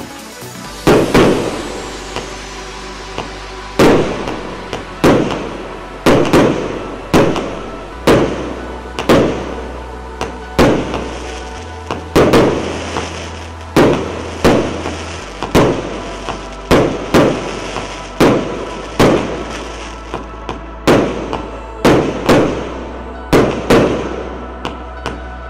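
Consumer fireworks battery (cake) firing shot after shot: sharp bangs about once a second, some in quick pairs, each trailing off before the next.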